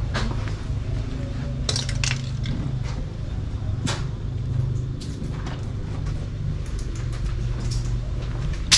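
Footsteps crunching on dry debris, with a few irregular sharp cracks, the loudest near the end, over a steady low hum.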